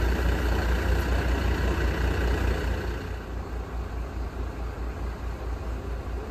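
A heavy truck's diesel engine idling with a steady, pulsing low rumble, here a MAN tow truck; the rumble becomes quieter about three seconds in.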